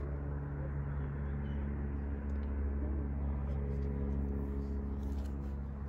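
Steady low drone of a distant engine, holding several even humming tones without change, over a low rumble.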